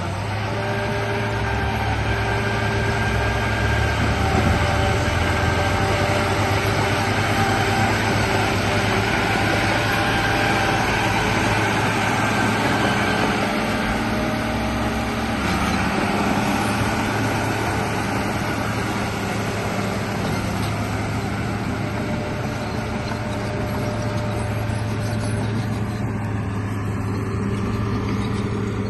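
Radio-controlled bulldozer running: a steady motor drone with several whining tones that shift in pitch about halfway through.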